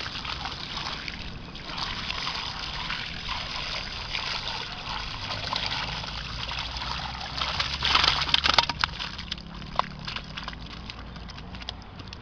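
Water pouring and splashing from a bucket onto a mesh cloth as a catch of small mojarras is tipped out, with a louder gush about eight seconds in.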